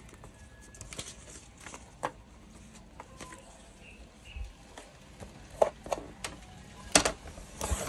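Paper being handled and shifted on a plastic paper trimmer, with scattered sharp clicks and taps that come louder and more often in the last few seconds.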